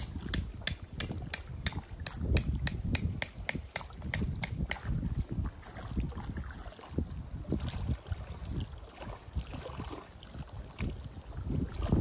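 Wind rumbling on the microphone. Over the first five seconds, a quick run of sharp high ticks, about four a second, sounds over it, then stops.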